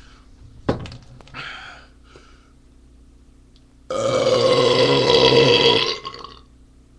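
A man's long, loud belch lasting about two seconds, starting about four seconds in, from chugging a forty-ounce beer. A single sharp knock about a second in.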